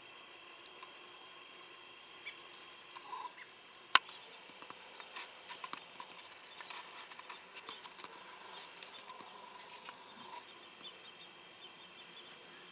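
Quiet field ambience with a steady faint high hum. A single sharp click comes about four seconds in, followed by a scatter of small clicks and crackles over the next few seconds. A bird chirps briefly before the click.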